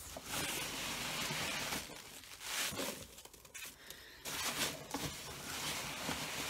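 Foam packing peanuts rustling and squeaking as hands dig through and scoop them out of a cardboard box, in several bouts separated by short pauses.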